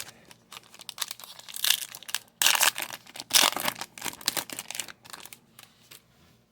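Crinkling and tearing of a trading-card pack's foil wrapper being ripped open, a run of rustling strokes loudest in the middle and dying away near the end.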